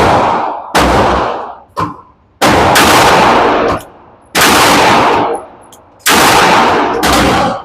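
A 9mm Glock 19 pistol, without a recoil-reducing compensator, fired in slow single shots, about one a second, each report ringing out for most of a second. A fainter report comes a little under two seconds in.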